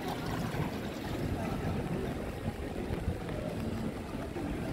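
Outdoor ambience of a pedestrian square: a steady low rumble with a faint hiss and scattered voices of passers-by.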